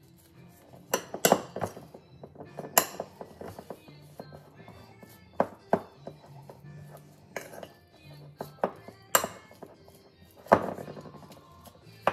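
A spoon clinking and scraping against a ceramic bowl and a glass baking dish while shredded cheddar is scooped onto stuffed jalapeño halves: a string of sharp clinks at uneven intervals. Faint music plays underneath.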